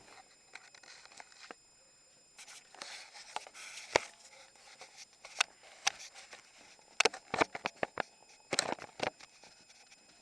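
Hard objects being handled on a table: irregular clicks, light knocks and scraping, with a sharp knock about four seconds in and quick clusters of knocks near seven and nine seconds.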